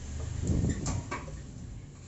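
A few short knocks and clatters of kitchen cookware being handled near the stove, about half a second to a second in, over a low rumble.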